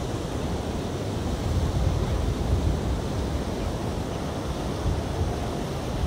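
Wind buffeting the microphone: a steady low rumble that swells and dips in gusts.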